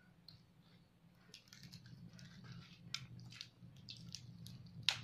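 Crackling skin of a crispy pata (deep-fried pork knuckle) being torn apart by hand: a run of small crackles and snaps from about a second in, with one sharper crack near the end.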